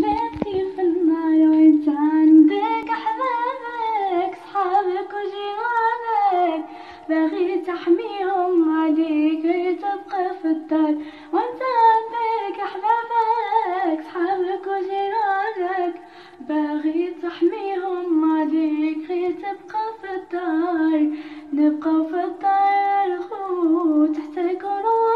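A young woman sings a Moroccan Darija song solo, with no instrument audible. Her single melodic line moves in ornamented, wavering runs.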